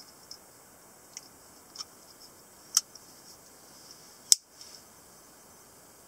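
Metal clicks from a butterfly knife being handled and swung open: several light ticks, then two sharp clicks, one near three seconds in and a louder one just after four seconds.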